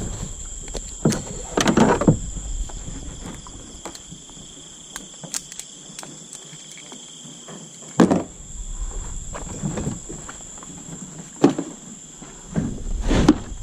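Fishing gear and plastic tubs being handled and set down, with scattered knocks and thumps: a cluster about two seconds in, a sharp one about eight seconds in, and more near the end. Behind it, night insects trill steadily at a high pitch.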